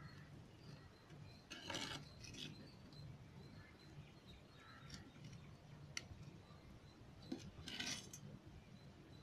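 Faint scraping of a steel ladle stirring fish curry in a clay pot: two short scrapes, one about two seconds in and one near the end, with a few light clicks between.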